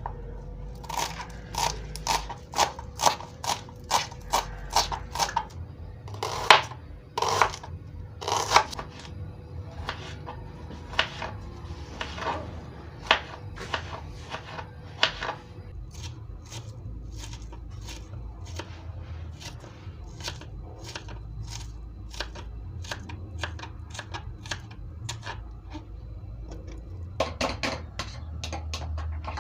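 Sharp, short knocks repeated about two a second, with the loudest strikes around six to nine seconds in, thinning out midway and bunching up again near the end.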